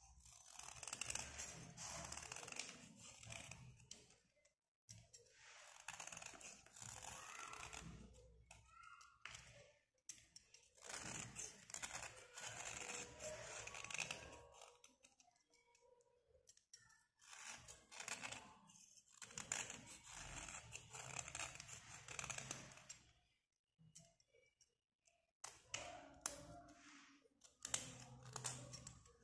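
Snap-off utility knife blade scraping along a slate pencil, shaving off its outer layer: runs of gritty scraping a few seconds long, about six of them, with short pauses between.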